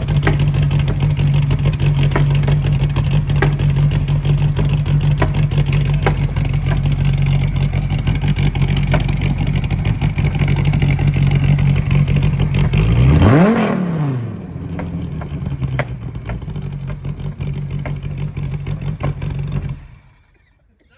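Gen IV Dodge Viper ACR-X's 9.0-litre stroker V10 running steadily and loudly, blipped once about 13 seconds in with a quick rise and fall in pitch, then running more quietly until the sound stops abruptly near the end.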